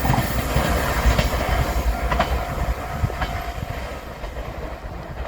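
Limited express train running through a level crossing, its wheels clattering over the rail joints with scattered sharp clicks. The sound fades steadily as the train moves away.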